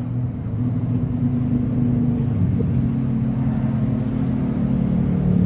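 A steady, low motor hum, like an engine running close by, holding the same pitch throughout.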